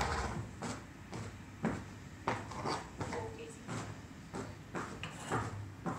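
A series of irregular knocks and clunks, about ten over six seconds, in a horse stable: hooves shifting on the concrete aisle and grooming gear being handled.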